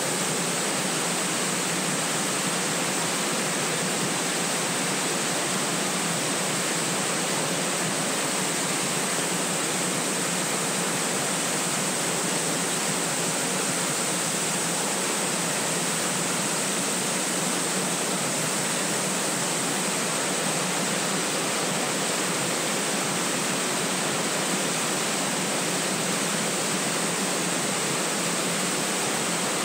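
Small woodland waterfall and its stream rushing steadily over rocks, an even, unbroken rush of water.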